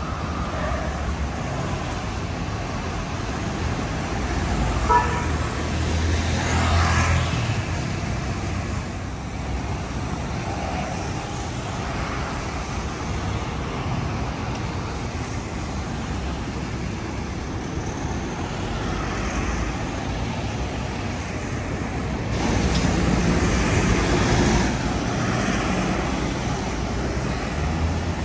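Steady road traffic and city ambience, a low rumbling hum that swells louder twice, with a single short click about five seconds in.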